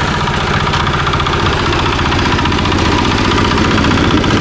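A concrete mixer's engine running steadily at constant speed while the mix is being made.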